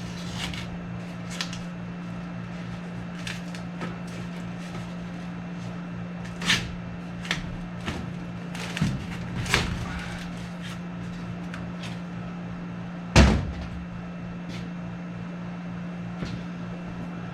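Scattered knocks, clicks and clanks of tools and sheet metal being handled while the old evaporator coil is worked out of the furnace, with one heavier thump about 13 seconds in, over a steady low hum.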